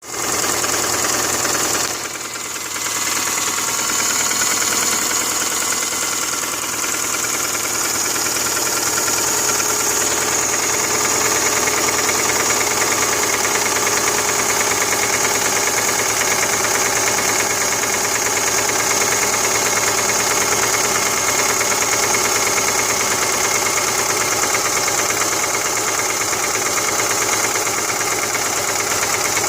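2005 Subaru Forester's 2.5-litre flat-four engine running steadily with a knocking noise: the fault the owner is trying to troubleshoot.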